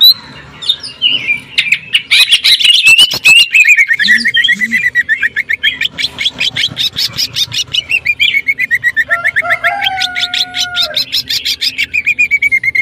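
Greater green leafbird (cucak ijo) singing a long, rapid, machine-like volley of short chattering notes, the 'sewing machine' burst, after a quieter couple of seconds. A lower whistled note glides in briefly a little before the end.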